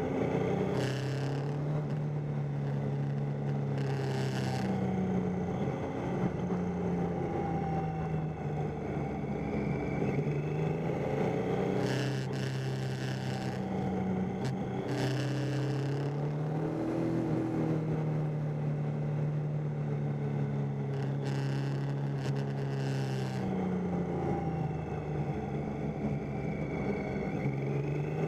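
Triumph Tiger 800's three-cylinder engine running under way, its pitch stepping up and down again and again with the throttle and gears. Brief rushes of hiss come and go several times over it.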